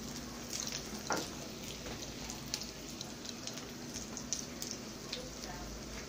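Eggs frying in hot oil in a wok: a steady sizzle with scattered small pops and crackles.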